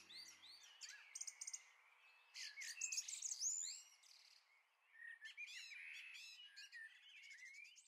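Several birds chirping and singing, with many short overlapping calls that come in bunches and grow fainter near the end. A low held music tone dies away in the first half-second.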